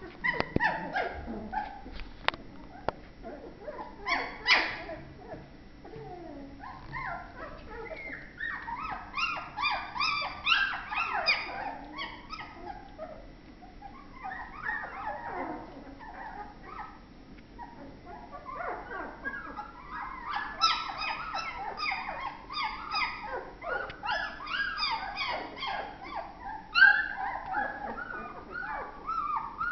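A litter of Tornjak puppies yipping, whining and squealing in quick, high-pitched bouts as they play-fight, with quieter gaps between bouts; the loudest yelp comes near the end.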